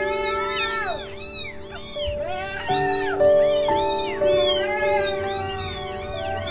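Several young kittens mewing over and over, with short calls that rise and fall in pitch and often overlap, over background music with held notes.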